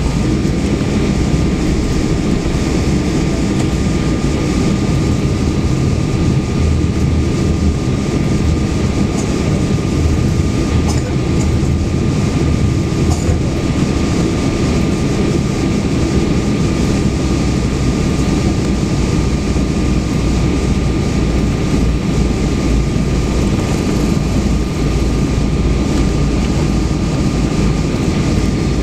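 Cabin noise of a Boeing 777-200ER taxiing: a steady low rumble from the engines and the wheels rolling over the taxiway, with a thin steady whine above it.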